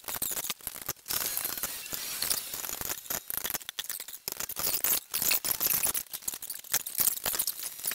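Irregular metal clinks, knocks and scrapes from hand work on the parts of a Massey power hammer being dismantled.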